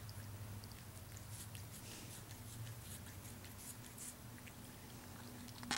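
A cat licking sauce off a person's hand: faint, irregular wet clicks and smacks of its tongue over a low steady hum. There is a louder sharp click near the end.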